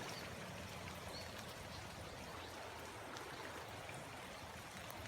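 Faint, steady rush of running floodwater trickling and flowing through the rice-field banks.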